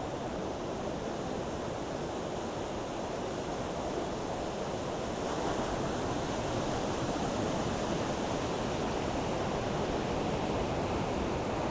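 Rough ocean surf breaking on a beach: a steady rush of waves, growing slightly louder about halfway through.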